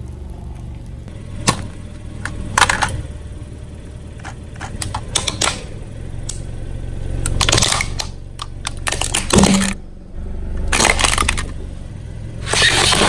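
Car tyre rolling over and crushing objects on concrete: scattered sharp cracks and crackles of plastic giving way, over a steady low hum from the car. Near the end a louder, denser crunching starts.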